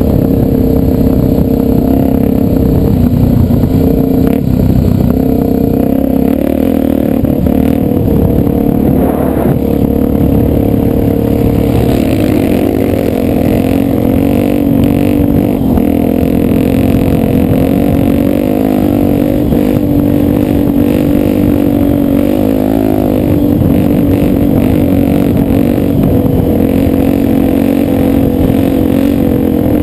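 Dirt bike's single-cylinder four-stroke engine running steadily under way, its pitch wavering slightly with the throttle.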